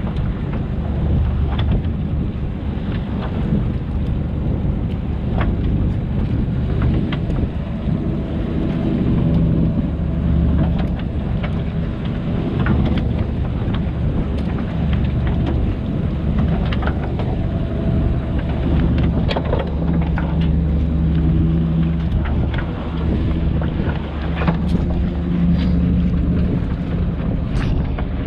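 Fishing boat's engine running steadily, with wind buffeting the microphone and scattered knocks and clanks on deck.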